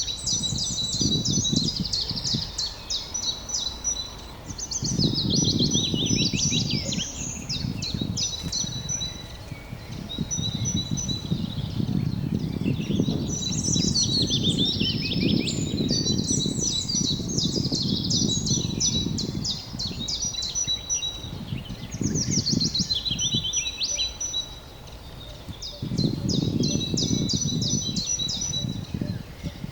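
Several songbirds singing at once, with fast trills and quick runs of repeated high notes. Under them a low rumble swells and fades every few seconds.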